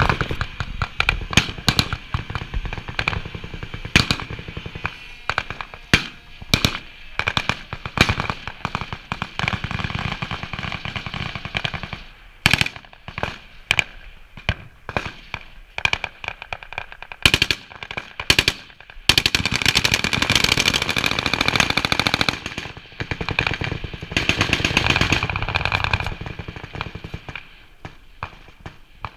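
Rapid, irregular sharp bangs and pops, thickening into dense crackling volleys about two-thirds of the way through, then thinning out near the end.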